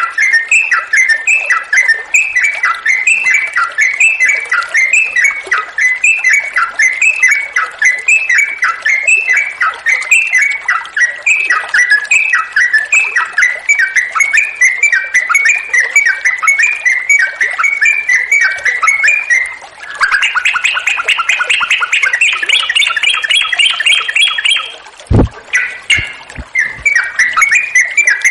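Yellow-vented bulbul (trucuk) singing a long, unbroken run of repeated phrases, about two to three a second. About 20 s in it changes to a quicker, higher, rising trill for several seconds, then a brief knock cuts in and the repeated phrases resume.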